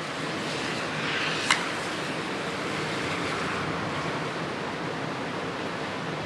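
Typhoon wind blowing steadily through trees as an even rush of noise. It swells slightly about a second in, and a single sharp click comes about a second and a half in.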